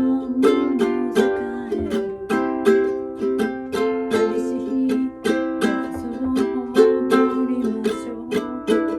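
Ukulele strummed in a steady rhythm, the chords changing as the tune moves on.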